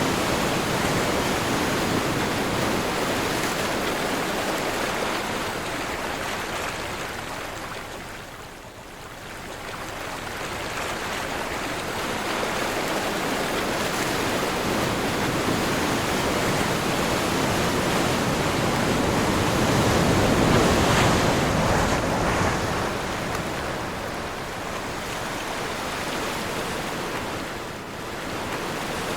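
Sea waves breaking and washing in on a windy day: a continuous rush of surf that ebbs to a low about nine seconds in, then builds again to its loudest surge around twenty seconds.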